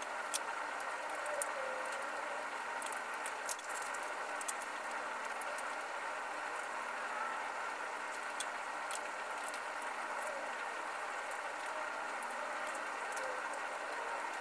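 Faint clicks and light rattles of plastic food containers and a utensil being handled while eating, over a steady room hiss.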